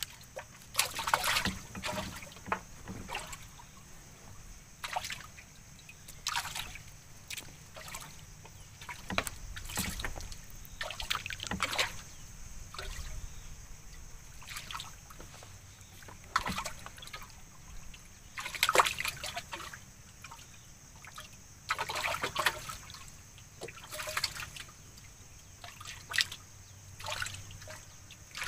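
A wooden paddle dipping and stirring in river water beside a wooden canoe, with water trickling and sloshing in irregular splashes every second or two.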